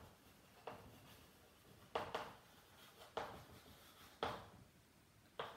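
Chalk tapping and scraping on a blackboard as words are written: about seven short, sharp strokes at irregular intervals, some in quick pairs.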